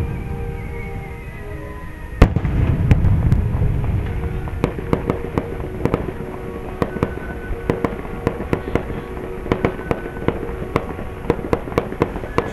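Fireworks: a loud bang from an aerial shell about two seconds in, followed by a low rumbling echo, then a run of sharp, irregular crackling pops, several a second.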